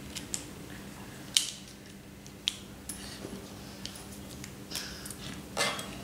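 Scattered sharp clicks and taps of plastic felt-tip pens being handled on the paper, uncapped and set down. The loudest click comes about a second and a half in, with a short rustle near the end, over a low steady hum.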